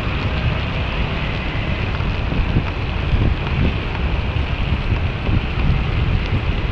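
Wind buffeting the microphone of an action camera on the move, a steady low rumble, over the even hiss of heavy rain and wet road.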